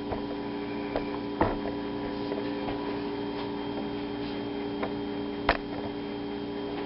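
Steady electrical hum made of several even tones, with a few sharp clicks, two of them louder, about a second and a half in and near the end.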